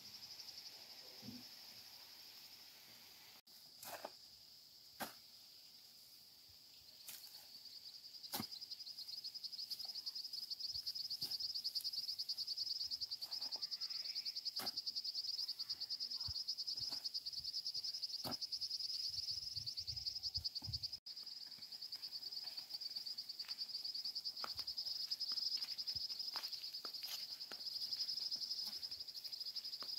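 A steady high-pitched chorus of insects, growing louder about eight seconds in. Scattered short knocks and scrapes of a shovel working clay into a wheelbarrow sound over it.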